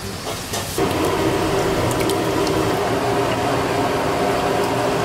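Wet squishing of marinated chicken pieces being mixed by hand with yogurt in a large pot. Underneath is a loud, steady hum that sets in about a second in.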